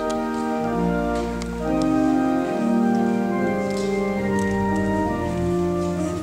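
Organ playing slow, sustained chords, the notes held and shifting about once a second.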